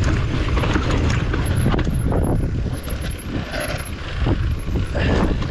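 Mountain bike ridden over rough rocky ground: a steady rumble of wind and bumps on the microphone, with the bike rattling and clicking over the rocks.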